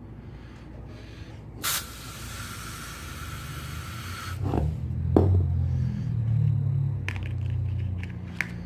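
An Air Wick aerosol air freshener sprayed in one hissing burst of about two and a half seconds, followed by louder low rumbling handling noise.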